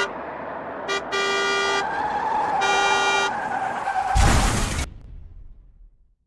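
Cartoon truck sound effects: a truck horn honks a short toot, then longer toots, over a running engine, then a loud blast about four seconds in that rumbles away as the garbage truck loses its wheel.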